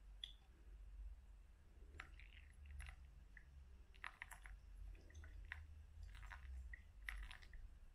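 Faint scattered wet clicks and crackles, more of them from about two seconds in, as a gooseneck kettle pours a thin stream of hot water onto wet, bubbling coffee grounds in a paper filter of a pour-over dripper.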